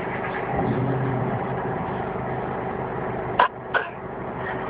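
A baby gives two short coughs about three and a half seconds in, over a steady background hum. The parent takes them for put-on coughing, not a real cough.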